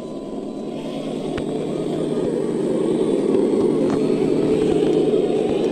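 Electric motors and gear drivetrains of 1/8-scale RC trucks whirring as they crawl through snow, growing louder over the first few seconds as one comes close, then holding steady.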